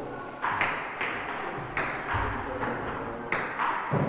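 Table tennis rally: a celluloid/plastic ping-pong ball clicking back and forth off the rubber paddles and the Sponeta table top, about two sharp clicks a second in a steady rhythm. A dull low thump comes a little after halfway.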